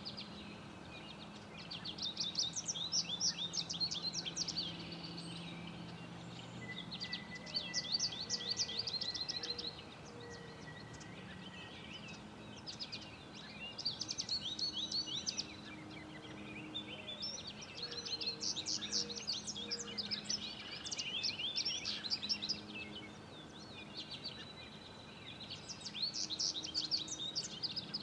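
A songbird singing in repeated bouts of quick, high chirping notes, each bout lasting two to three seconds, with pauses of a few seconds between them, over a faint steady low hum.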